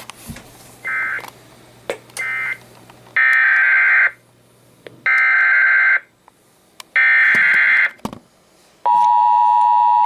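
Emergency Alert System SAME header: three loud warbling data bursts of about a second each, a second apart, after two shorter blips, then the long steady attention tone starts near the end. The sequence signals the start of an emergency alert, here a severe thunderstorm warning.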